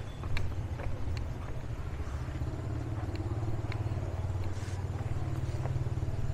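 A motor vehicle engine running steadily with a low rumble, with a few faint clicks over it.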